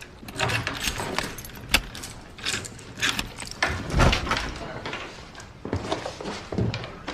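Irregular sharp clicks and knocks, with a few low thumps among them; the loudest fall about two seconds in and about four seconds in.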